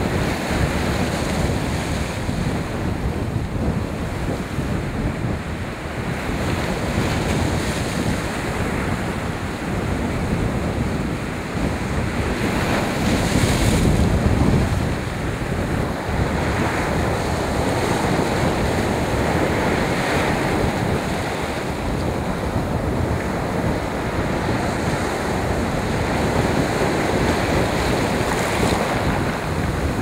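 Storm surf breaking and washing up a pebble beach in strong wind, with wind buffeting the microphone. One bigger wave crashes a little before halfway through.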